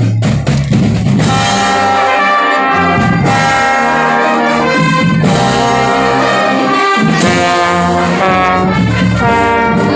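Marching band brass section playing a loud sustained melody, trumpets and trombones together, with the drums starting the phrase at the opening.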